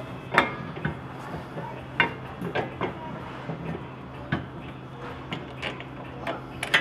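Metal parts of a big brake caliper kit clinking and knocking as the caliper and its bolts are handled and fitted over the brake rotor: a handful of sharp, irregular clicks, the loudest just after the start and near the end, over a steady background hum.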